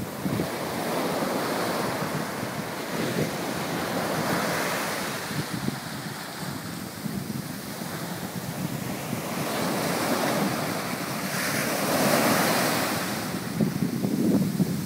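Sea surf washing onto a sandy beach, with wind rushing on the microphone. The noise swells and eases as the waves break, loudest about twelve seconds in.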